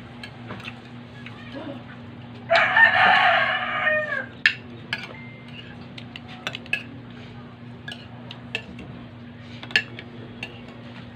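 A rooster crows once, loudly, about two and a half seconds in, the call falling away at its end. Around it, spoons and forks click and scrape on plates.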